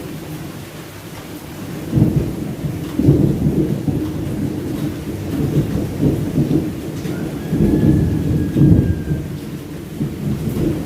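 Thunder rumbling through steady rain, swelling about two seconds in and again near eight seconds.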